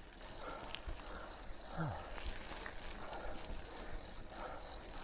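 Walmart Ozark Trail mountain bike on commuter tires rolling over a rough dirt trail, quiet tyre and trail noise with soft rhythmic swells about once a second.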